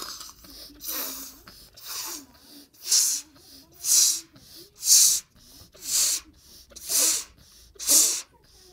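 A child blowing up a rubber balloon as fast as she can: a rush of breath about once a second, eight in a row, as the balloon fills.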